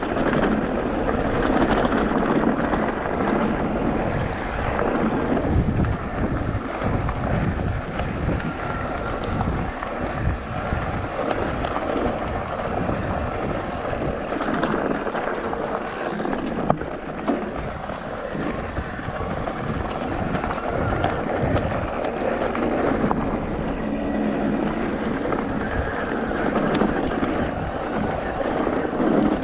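Off-road motorcycle engine running under a rider on a dirt trail, its pitch shifting with the throttle, with wind noise on the microphone throughout.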